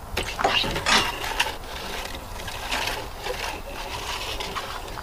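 Irregular scraping and knocking of a metal detector against rough-sawn cedar cants, loudest about a second in.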